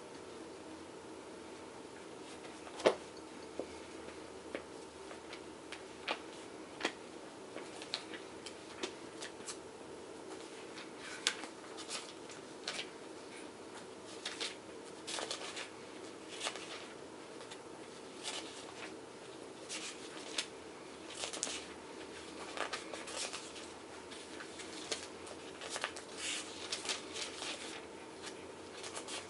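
Pages of a book being leafed through and turned: a run of soft paper rustles and light clicks, busier in the second half, with one sharper tap about three seconds in, over a steady faint hum.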